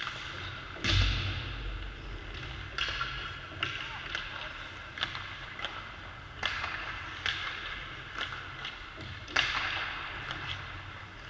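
Ice hockey practice: sharp cracks of sticks hitting pucks and pucks hitting boards and glass, echoing in the rink, with a heavy thud about a second in and a short scraping hiss after several of the hits.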